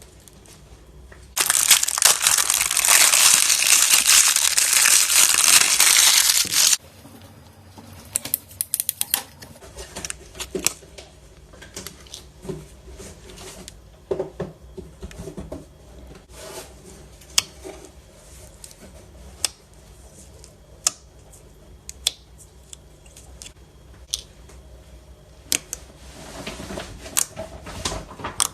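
Plastic packaging loudly torn and crinkled for about five seconds, then scattered sharp clicks and small pops from slime being handled. A softer crinkle comes near the end.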